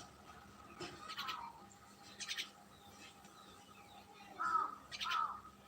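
Common myna calling: a few short harsh notes in the first half, then two louder calls with falling pitch in quick succession near the end.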